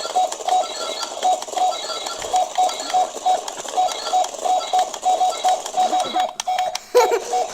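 Toy remote-control robot playing its electronic sound effect: a long run of short, high beeps at one pitch, often in pairs, over a steady hiss. A voice comes in near the end.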